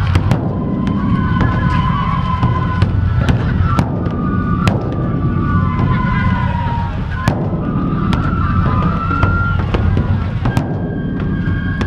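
Festival procession with a giant taiko drum: a steady low rumble with irregular sharp cracks, and high held tones sounding over it.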